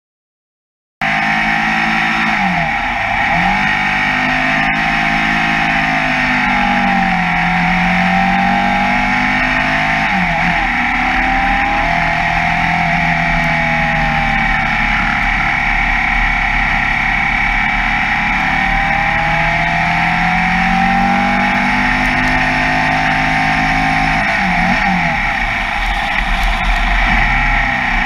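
Formula Vee racing car's air-cooled Volkswagen flat-four engine, heard on board at racing speed. It cuts in suddenly about a second in, and its revs climb and drop again and again through gear changes and braking for corners.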